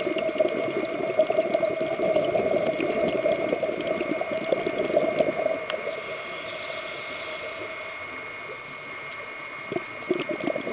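Scuba diver's exhaled bubbles gurgling out of the regulator, heard underwater. The bubbling eases off about six seconds in and starts again near the end, over a thin steady high tone.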